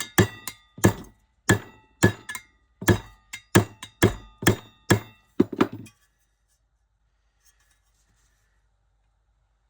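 Hammer blows on a dented metal fan cover to knock the dent back out, so the fan blades no longer strike it. About fifteen irregular strikes, each with a brief metallic ring, stop about six seconds in.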